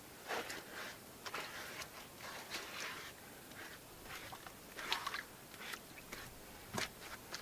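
Irregular crunching and scraping of grit, stones and debris being handled on the bottom of a drained pond, with a few louder scrapes about five and seven seconds in.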